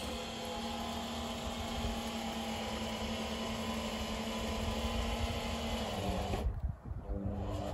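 Electric caravan mover's motors whirring steadily while it drives the caravan slowly toward the car's towbar. The hum stops abruptly about six and a half seconds in.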